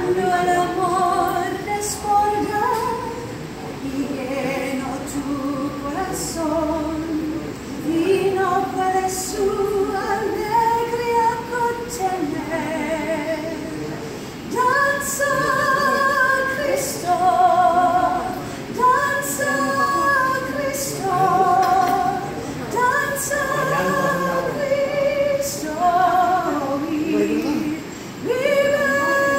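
A woman singing solo, phrase after phrase with vibrato, and holding a long steady note near the end.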